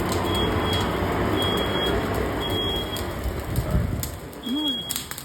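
Smoke alarm sounding its temporal-three pattern: three high half-second beeps about a second apart, a pause, then three more. Under the beeps, a loud rushing noise fades away about four seconds in.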